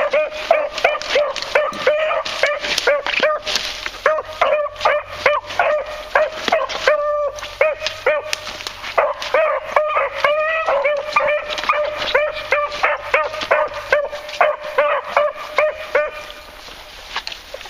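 Beagle hounds giving tongue while running a scent line: a rapid string of high, yelping bays, several a second, with one longer drawn-out bay about seven seconds in. The baying stops shortly before the end.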